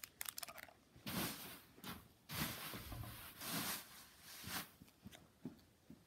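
Cellophane wrapper of a sticker sheet crinkling as it is handled: four or five short rustles of about half a second each, followed by a few light clicks near the end.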